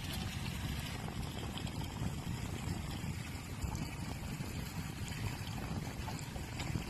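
Steady low rumble of a boat moving at trolling speed, with water washing along the hull.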